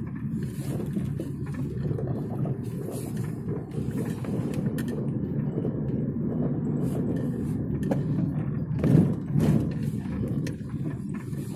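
Car engine and road noise heard from inside the cabin while driving slowly, a steady low rumble that swells briefly about nine seconds in.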